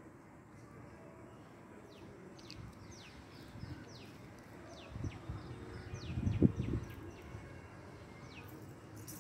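Small birds calling with many short, quickly falling chirps over a steady outdoor background. A few low thumps come a little past the middle, the loudest about six and a half seconds in.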